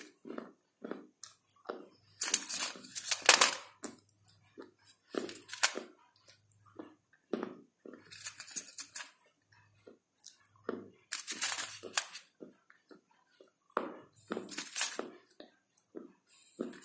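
Close chewing and crunching of hard pieces of edible baked clay and slate, with many short sharp crackles. There are several louder, longer bouts of crunching.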